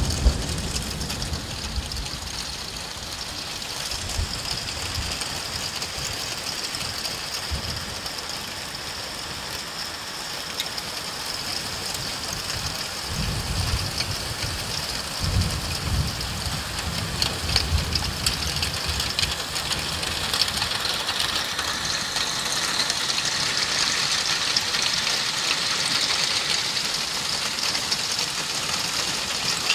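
Hail and heavy rain pelting the ground: a dense, steady patter of hailstones, full of fine ticks, that grows more intense in the second half. A few low rumbles swell up around the middle.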